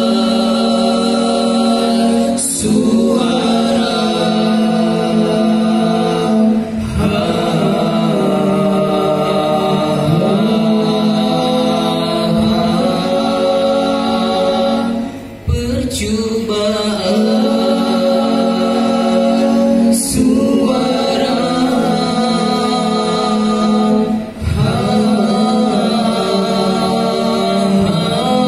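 Male vocal group singing a cappella in close harmony through microphones and a PA, long held chords in phrases with short breaks between them.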